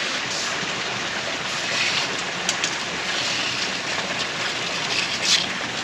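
Steady, even hiss of outdoor background noise, with a couple of faint ticks partway through and near the end.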